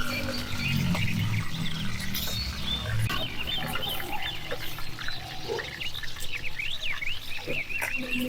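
Farmyard animal sounds: low pitched calls for about the first three seconds, then a long run of quick, high chirps.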